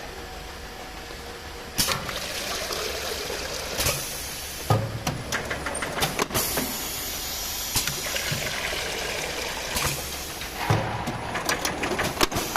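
Small water filling line running on test: a steady hiss with irregular sharp clicks and clacks from its mechanism, several close together in the second half.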